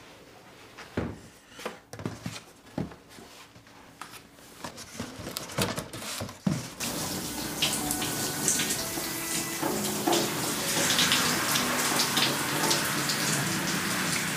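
Scattered light knocks and taps of boxes being handled on storeroom shelving, then, about halfway through, a shower running: a steady spray of water starting suddenly and running on louder than the knocks.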